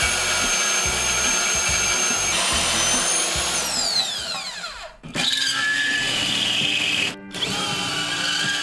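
Portable band saw in a bandsaw table cutting through rectangular steel tube, its motor whine falling away as it spins down about four seconds in. Then a power drill boring a hole through the steel bar, stopping briefly about seven seconds in.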